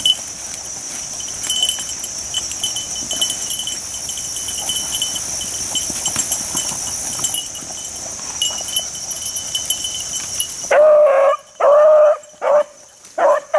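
Beagle hound baying on a scent trail: four loud drawn-out bawls in quick succession, starting about eleven seconds in. Before that there is only a steady high-pitched background buzz and light rustling as the hound works through brush.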